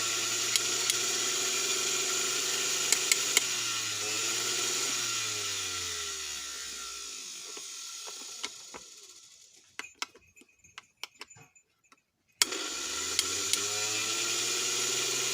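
Mixer grinder's universal motor running at full speed on a test run, with a high whine. About five seconds in it is switched off and winds down with falling pitch to a stop, a few clicks follow, and about twelve seconds in it is switched on again and is straight back at full speed, running without any problem.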